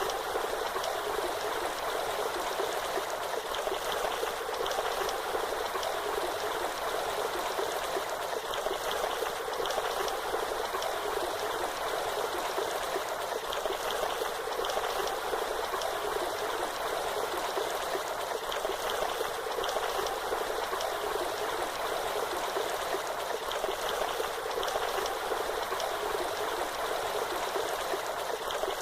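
Waterfall: falling water rushing steadily, an even splashing hiss with little deep rumble.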